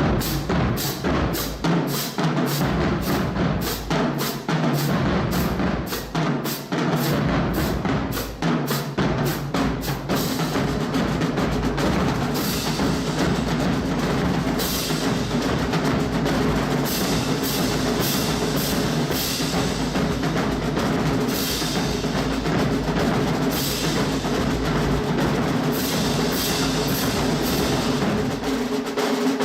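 Drum-heavy music: rapid, evenly spaced drum strokes for about the first ten seconds, then drums under steady low sustained notes with repeated bright crash-like hits.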